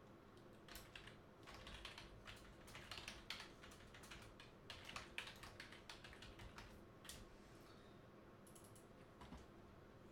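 Faint typing on a computer keyboard: quick irregular key clicks that thin out after about seven seconds.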